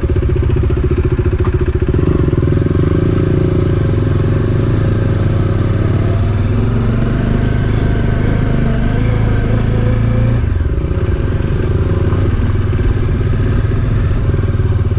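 Motorcycle engine running steadily under way. The engine note eases and drops briefly about two-thirds of the way through, then picks up again.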